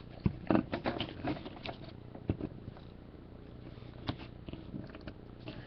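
Hands handling trading cards and their packaging: soft scattered rustling with a few light clicks and ticks, busiest in the first second or so.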